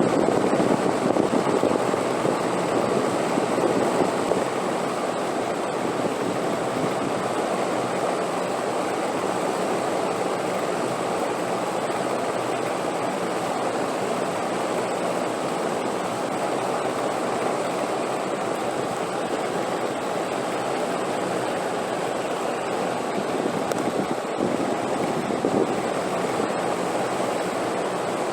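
Steady rushing wind, a little stronger over the first four seconds and then even.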